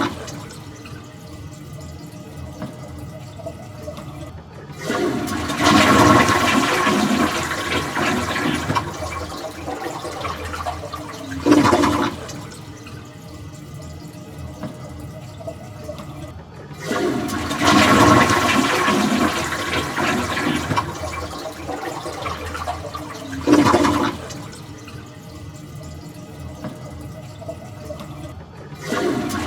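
Toilet flushing again and again, about every twelve seconds. Each cycle has a short loud burst of water, then a few seconds of quieter running water, then a longer loud rush that slowly tapers off.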